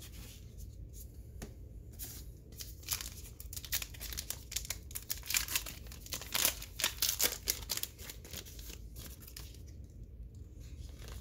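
Crinkly wrapper of a trading-card pack being torn open and handled, a run of short crackling rips that is busiest in the middle.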